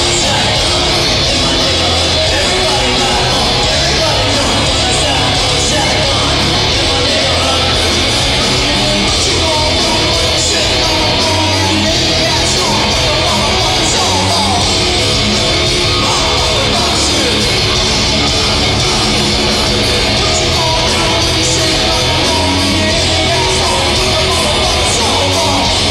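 Loud live heavy rock band playing, with electric guitar and drums and yelled vocals over them.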